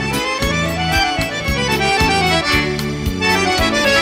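Accordion-led band playing the instrumental close of a song after the last sung line, over a steady drum beat and bass.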